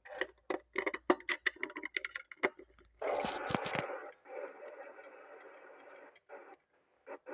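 A quick run of sharp clicks, then a CB radio receiver hissing with static through its speaker for a few seconds, breaking into short bursts near the end.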